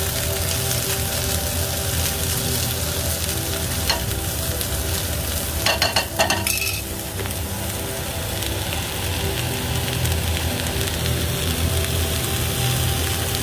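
Sauerkraut sizzling as it fries in a nonstick skillet, its moisture cooking off, while a silicone spatula stirs it. A few sharp clicks of the spatula against the pan come about four seconds and six seconds in.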